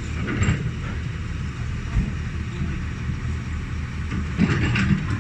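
Excavator's diesel engine running steadily, with a few short louder mechanical noises about half a second in and again near the end.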